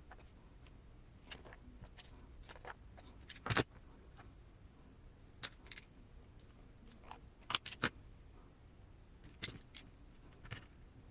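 Scattered light clicks and taps of small suspension-link parts, plastic rod ends and link rods, being handled and fitted together. The loudest click comes about three and a half seconds in, and a quick pair near eight seconds in.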